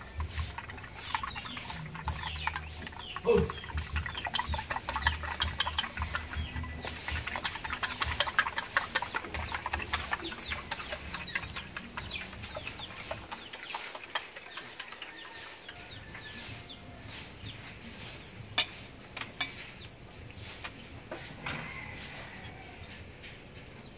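Chopsticks rapidly tapping against a small ceramic bowl as eggs are beaten, the clicks thinning out in the second half. Hens cluck in the background.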